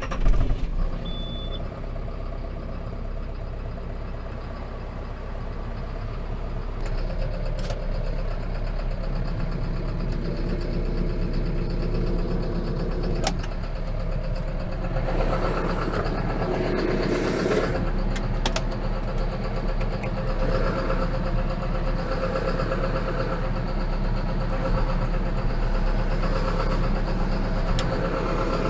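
John Deere 6430 Premium tractor's diesel engine running under way, heard from inside the cab, getting louder over the first several seconds. A short high beep sounds about a second in.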